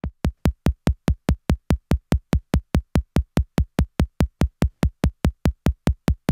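Electronic music intro: a lone drum-machine kick drum beating steadily, about four beats a second, with nothing else playing.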